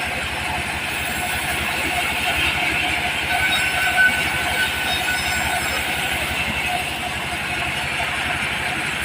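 Diesel engine of a mobile sawmill running steadily with a fast, even chugging, and a brief high squeal about four seconds in.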